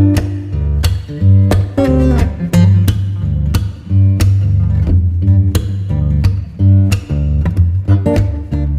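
Background music: plucked acoustic guitar with a bass line and a steady beat.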